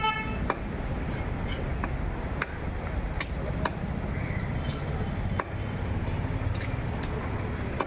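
A large knife working over a tilapia, scraping scales with irregular sharp clicks and ticks of the blade, over a steady hum of street traffic. A vehicle horn toots briefly at the very start.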